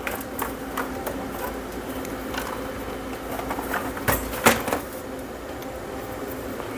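Scattered clicks and knocks of plastic projector casing and small parts being handled and fitted together during reassembly, the loudest pair about four seconds in, over a steady low hum.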